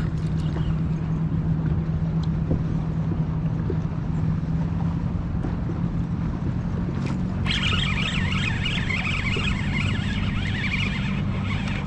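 A motorboat engine running steadily as a low drone. A higher, warbling sound joins in past the middle and stops about a second before the end.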